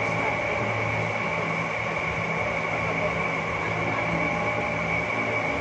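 Steady machine hum with a constant high-pitched whine over it, the low hum swelling and easing slowly.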